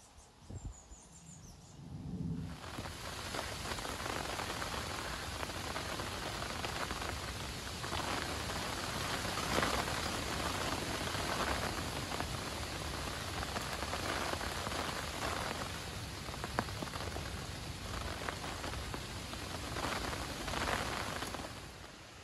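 Heavy rain pouring onto a lake's surface and the bankside foliage, a dense steady hiss. It sets in abruptly about two and a half seconds in and dies away just before the end.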